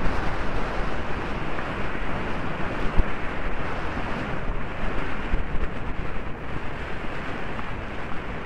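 Steady wind rush buffeting a helmet camera's microphone as the horse gallops, with a low rumble underneath.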